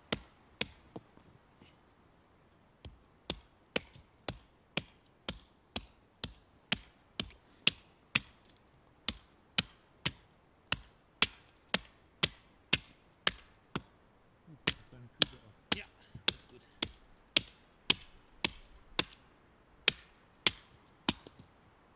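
Axe chopping wood on a stump with sharp, regular strokes, about two a second, after a pause of about two seconds near the start.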